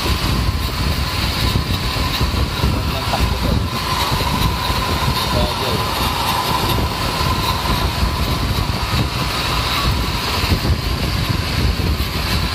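Metal lathe running steadily with a car flywheel spinning in its chuck while the tool bit resurfaces the flywheel's face: a continuous machine rumble with a thin, steady high tone.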